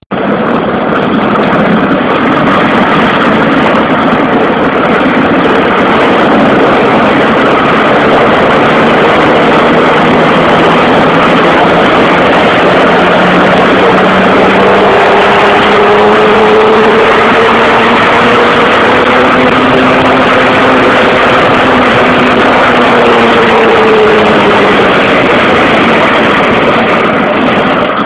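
Plastic Big Wheel tricycle rolling at high speed: a loud, steady noise of its hard wheels on the ground. About halfway through, a faint hum rises and then falls in pitch.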